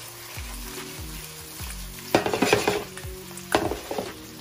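Chicken pieces with onion and garlic sizzling in a nonstick frying pan while a spatula stirs them, with two short runs of scraping clatter against the pan about two and three and a half seconds in.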